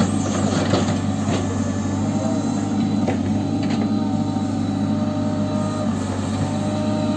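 An engine running steadily at a constant speed, with a few faint clicks over it.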